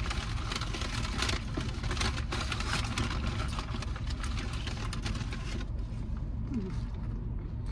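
Close, crackly crunching and chewing of crispy fried chicken wings for about the first five and a half seconds, over the steady low hum of a car's engine idling.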